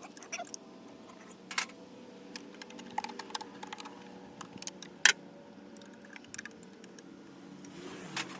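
Scattered metallic clicks and taps of hand tools, hose pliers working the clamps off the throttle body's vacuum and coolant hoses, with one sharper click about five seconds in.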